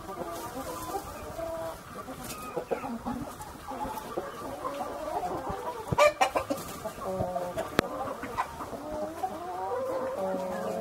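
Brahma chickens clucking, with many short, overlapping calls and some longer drawn-out ones. A sharp knock about six seconds in is the loudest sound, and a lighter one follows near eight seconds.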